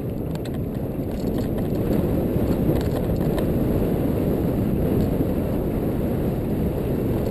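Mountain bike riding fast down a dirt singletrack: a steady low rush of wind on the microphone and tyre noise, with scattered light clicks and rattles from the bike.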